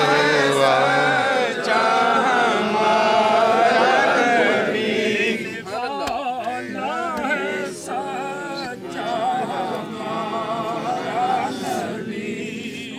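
A group of men chanting a recitation together at a graveside. The chant is loud and full at first, then thins to fewer voices and grows quieter about five seconds in.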